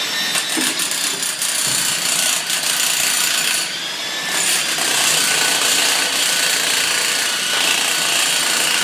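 Dr Bender electric handsaw cutting reinforced concrete: a steady, loud grinding noise with a faint high whine over it.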